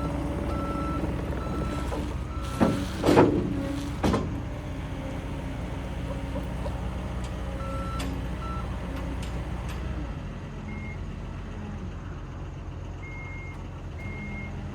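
John Deere 317G skid steer running, its diesel engine holding a steady drone that drops lower about two-thirds of the way through. Its backup alarm beeps in short, evenly spaced bursts, and a few sharp metallic clanks come a few seconds in.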